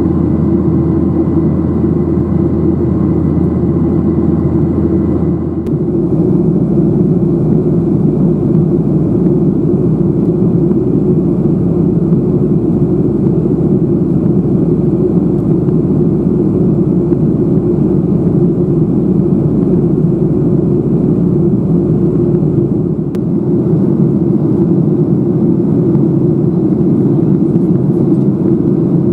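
Steady engine and airflow noise in the passenger cabin of a Boeing 737-800 in flight, heard from a window seat. A low hum drops away about six seconds in, and the deepest part of the noise shifts again about three quarters of the way through.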